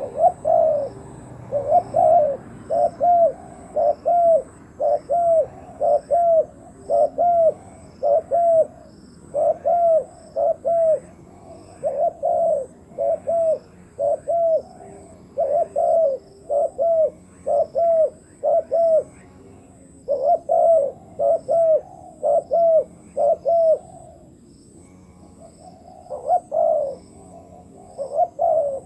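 Spotted doves cooing: a steady series of short, arched coo notes in repeated phrases, with a brief pause a little before the end.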